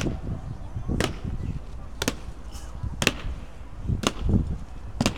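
Boots of honour guards stamping on a stone floor in slow ceremonial march: five sharp strikes about one second apart, in step.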